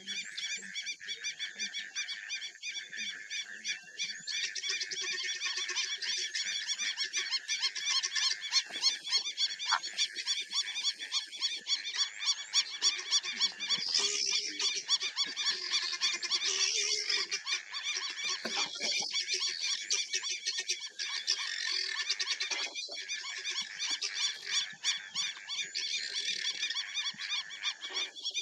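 A dense chorus of rapid, high-pitched pulsing animal calls, steady throughout and a little louder in the middle.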